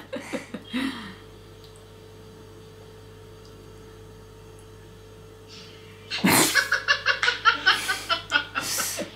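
A man and a woman laughing: the end of one fit of laughter fades out in the first second. After a quiet stretch with a faint steady hum, a sudden loud burst of laughter breaks out about six seconds in and carries on as rapid, rhythmic bursts of laughs.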